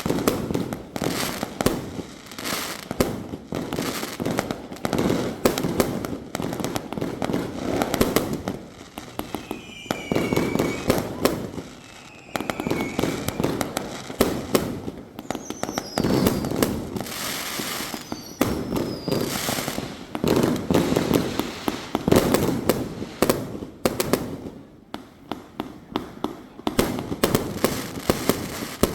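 A 2-inch, 88-shot firework cake firing in rapid succession: a dense string of sharp launch reports and bursts with crackle, and a few short falling whistling tones midway.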